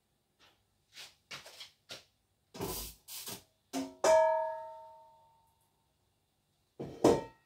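Kitchen clatter of metal cookware being handled: a series of short knocks and clunks, then about four seconds in a metal pan clangs and rings out with a clear tone that fades over about a second and a half, and one more knock near the end.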